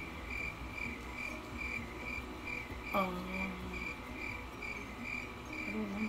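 Steady insect chirping, a high pulsed chirp repeating about three times a second, with a short voice sound about halfway through.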